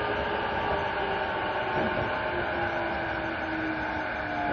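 Inside a JR East E233-5000 series electric train: the traction motor whine falls slowly in pitch as the train slows, over the steady rumble of the wheels on the rails.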